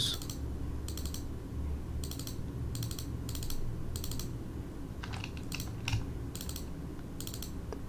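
Computer mouse clicking, one sharp click about every second at an uneven pace, as edges are selected one at a time. A faint low hum runs underneath.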